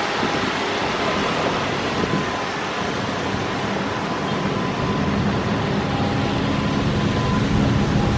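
Steady road traffic on a wet road: cars passing with tyre hiss, mixed with the splashing of a large fountain. A lower engine hum grows louder near the end as a truck comes close.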